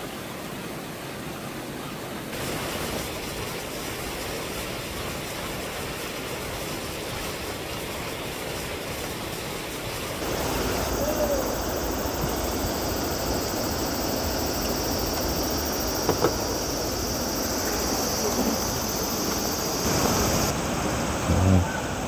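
Rushing mountain-stream water, a steady noise that shifts abruptly about two and ten seconds in; from about ten seconds a high steady hiss joins it. A short low thump comes just before the end.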